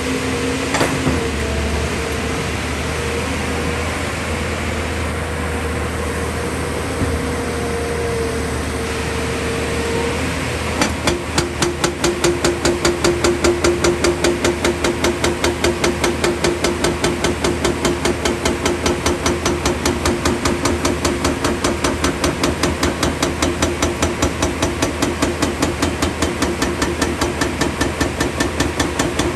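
JCB excavator's diesel engine running steadily with a held hydraulic whine; about 11 seconds in, its hydraulic rock breaker starts hammering into rock in rapid, even, repeated blows that keep going.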